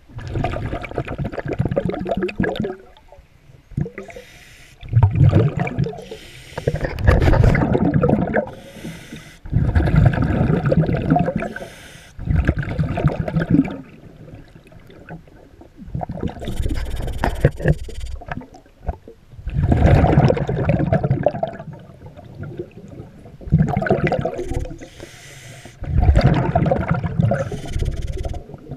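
Underwater breathing through a regulator: a bubbling, gurgling burst every three to four seconds, with a softer hiss between some of the bursts.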